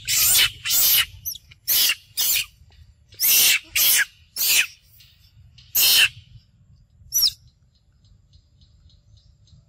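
Young long-tailed macaque screaming: about eight harsh, shrill screams in quick succession over six seconds, then one short high squeak about seven seconds in.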